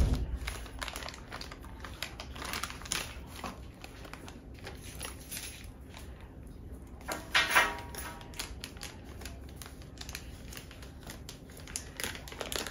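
Tissue paper rustling and crinkling as a small mystery toy figure is unwrapped by hand, in scattered soft crackles with a louder burst about seven seconds in.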